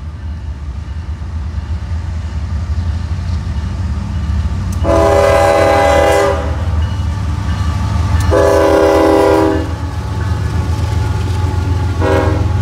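CSX freight train's diesel locomotive approaching and passing with a steady low engine rumble that grows louder, while its multi-chime air horn sounds two long blasts and then a short one near the end, the opening of the long-long-short-long grade-crossing signal.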